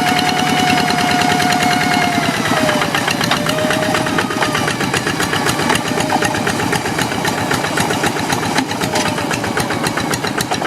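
Hand tractor's Kubota single-cylinder diesel engine running, with rapid, even knocking beats and a high whine over them, the engine's persistent 'ngiung ngiung'. The whine drops in pitch about two and a half seconds in and dips briefly again near the end.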